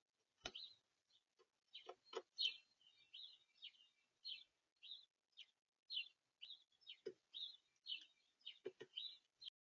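Small songbirds at a feeder giving many short, high chirps, one after another, with a few sharp knocks and taps among them.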